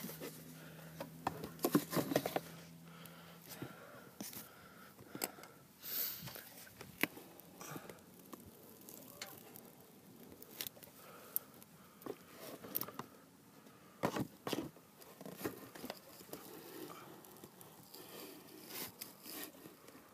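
Scattered small clicks, taps and scrapes of hands working on a small engine and its oil fill, with a steady low hum during the first few seconds.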